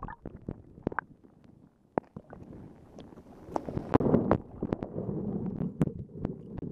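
Muffled underwater gurgling and sloshing of lake water around a submerged camera, with scattered sharp clicks and knocks. It grows louder about halfway through.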